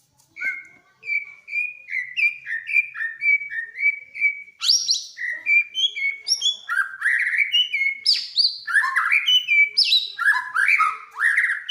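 White-rumped shama singing. It starts with a run of repeated short down-slurred whistles, then from about five seconds in breaks into a louder, faster, more varied song with higher notes.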